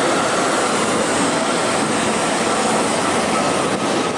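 Steady cabin noise inside a Boeing 777-300ER in flight: an even rush of engine and airflow noise with a faint steady hum.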